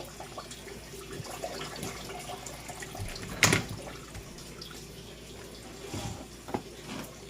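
Water running and splashing, with scattered small clicks and one sharp knock about three and a half seconds in.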